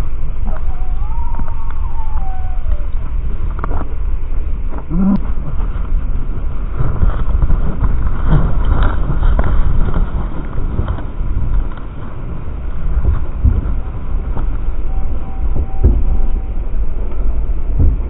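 Slowed-down audio of gulls and ravens flocking to food: a steady low rumble with flapping strokes. A few bird calls are stretched into drawn-out, deepened tones, including a slow falling glide in the first few seconds, a short low call about five seconds in, and a level held note near the end.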